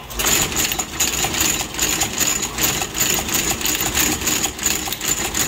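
Heavy sole-stitching machine running, a rapid even clatter of about three stitches a second as it drives the needle through a thick stack of welt, leather midsole and rubber sole.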